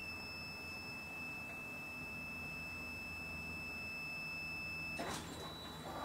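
Ryobi One+ garage door opener sounding a steady, high-pitched electronic warning beep for about five seconds after being triggered from its phone app: the alert it gives before closing the door remotely. The tone cuts off about five seconds in with a clunk.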